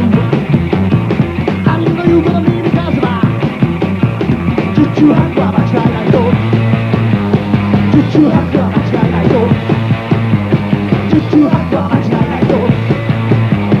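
A rock band playing live with a fast, driving beat.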